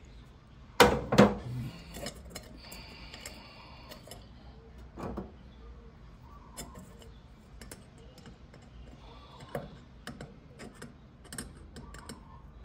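Clicks and knocks of parts being handled inside an MG TD headlight shell, among its wiring. Two sharp knocks about a second in are the loudest, followed by a short rattle, another knock, and scattered lighter clicks.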